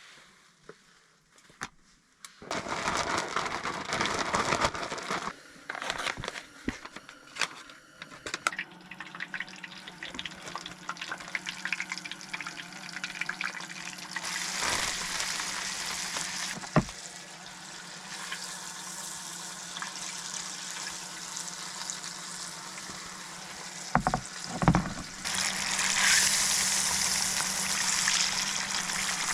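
Camp cooking: liquid pouring and bubbling, then fish sizzling in hot oil for the last few seconds, with a few sharp knocks of a pan or utensil.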